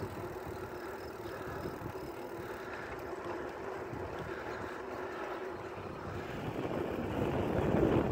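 Steady wind rush on the microphone mixed with the rolling noise of a bicycle on asphalt, getting louder near the end.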